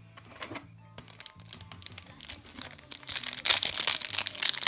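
Foil trading-card booster pack wrapper crinkling and being torn open, the crackling getting much louder about three seconds in.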